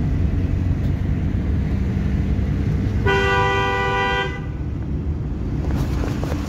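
Steady low rumble of a Suzuki car's engine and tyres, heard from inside the cabin while it drives in third gear. About three seconds in, a car horn sounds once for just over a second.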